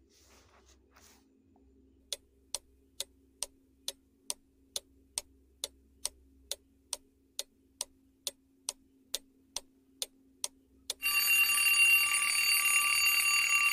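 Countdown-timer sound effect: a clock ticking evenly, a little over two ticks a second, for about nine seconds, then an alarm clock bell ringing loudly to signal that the answer time is up.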